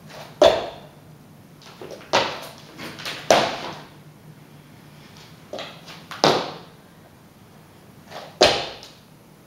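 Thuds of hands and feet hitting a hard floor during burpees with tuck jumps: about five loud landings at irregular intervals, with softer knocks between them.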